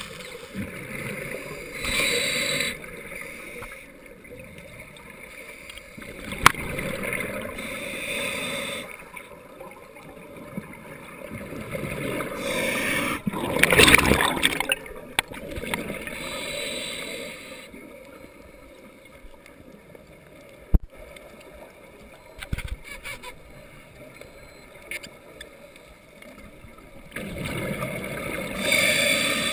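Scuba regulator exhalations heard underwater: bubbles rush out in loud gurgling bursts every few seconds, the loudest about halfway through, with quieter hiss between them and a couple of sharp clicks.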